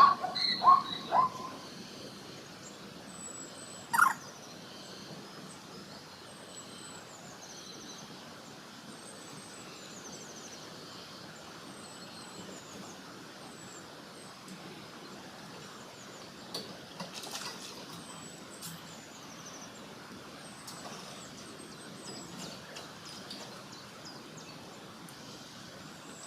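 A zebra's rapid, repeated barking call ends about a second in. Then comes quiet outdoor background with small birds giving short high chirps, and one sharp knock at about four seconds.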